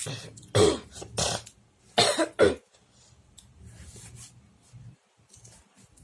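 Adhesive tape being pulled off the roll in four short tearing rips, two pairs about a second apart.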